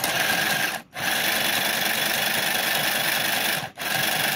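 Mini sewing machine with a plastic body running and stitching fabric under foot-pedal control, a steady mechanical whir that stops briefly twice, about a second in and again past three seconds in.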